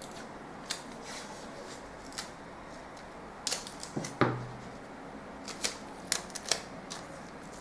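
Paper pattern pieces and drafting tools being handled on a table: scattered paper rustles, taps and clicks, with one louder knock about four seconds in.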